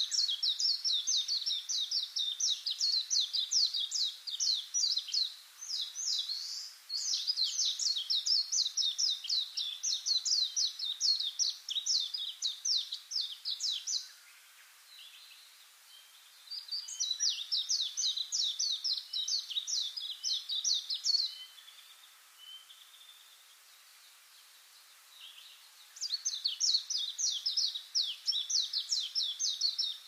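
A songbird singing long, rapid trills of high, downward-sweeping notes in three bouts, the longest lasting about fourteen seconds, with short quieter pauses between bouts.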